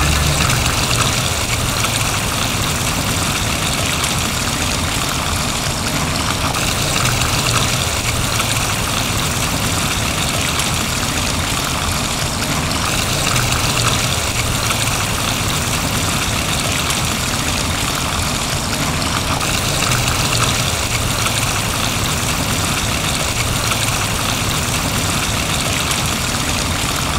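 Water pouring from stone rock scuppers into a swimming pool: a steady splashing rush of falling water, its tone shifting slightly a few times.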